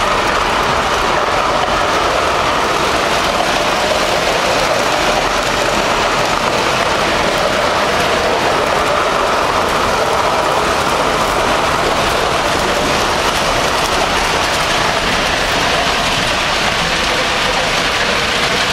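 Model subway train running on metal model-railway track, heard close from a camera riding on the train: a steady rolling rumble of wheels on rail with a motor whir that drifts slightly up and down in pitch.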